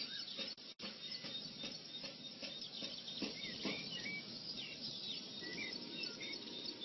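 Small birds chirping in the background, short repeated calls over a steady hiss, with faint scattered clicks and rustles.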